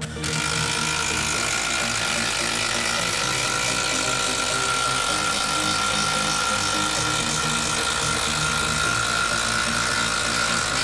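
Makita 12-volt cordless impact driver hammering without a break as it drives a long screw deep into a thick wooden beam: a dense rapid rattle with a steady high whine over it.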